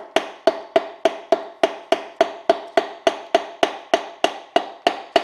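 Back of a hammer tapping a piston down the bore of a 350 Chevrolet small-block V8, in a steady run of light taps about three and a half a second. Each tap rings briefly at the same pitch. The rod is being eased onto its crankshaft journal and has not yet seated tight.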